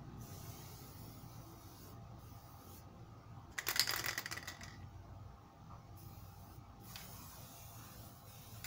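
Aerosol spray-paint can spraying one short burst of paint about four seconds in, with a low steady hum underneath.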